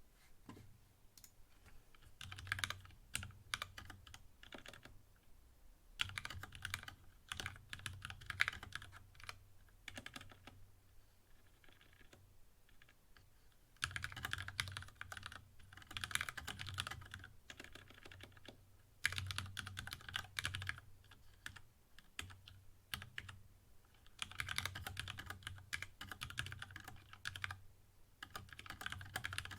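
Typing on a GK64X mechanical keyboard with lubed linear Cherry MX Black switches, a brass plate, a bamboo case and PBT keycaps. The keystrokes come in bursts of rapid clacks a few seconds long, with short pauses between.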